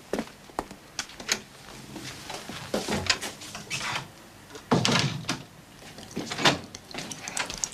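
Footsteps and a frosted-glass-panelled wooden door being closed: a series of light knocks and clatters, the heaviest about five seconds in.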